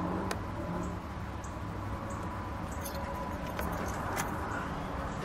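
Steady low background rumble with a few faint clicks and ticks scattered through it.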